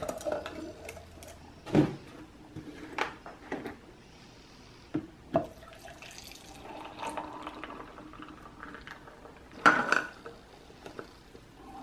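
Clear plastic lid pulled off a stainless steel tumbler and a plastic jug's screw cap opened, with a few clicks and knocks. From about halfway, liquid is poured from the jug into the steel tumbler. Near the end the lid is pressed back on with the loudest clack.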